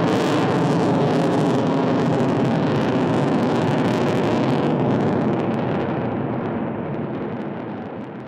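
Jet noise from an F-22 Raptor's two Pratt & Whitney F119 turbofan engines as the fighter climbs steeply: a loud, steady rush that fades out over the last three seconds.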